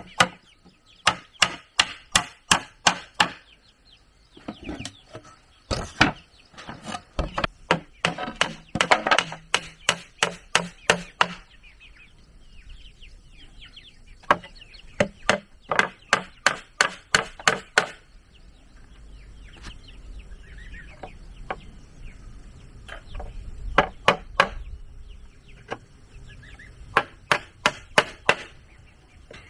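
Repeated blows on wood, about three strikes a second, in runs of several seconds with short pauses between them, typical of hammering or chopping while building a wooden dog house.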